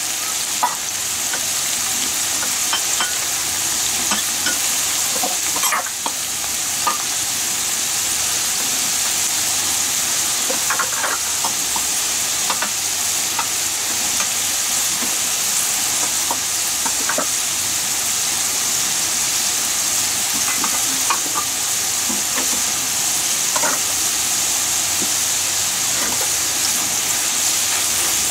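Potato sticks deep-frying in hot oil in a pan: a steady, hissing sizzle with scattered small pops.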